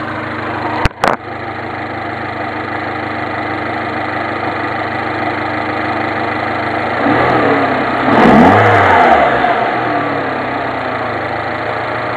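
Mini Cooper S's turbocharged 1.6-litre four-cylinder engine idling with a rattly idle, then revved once about seven seconds in, its pitch rising and falling back to idle. A couple of short knocks about a second in.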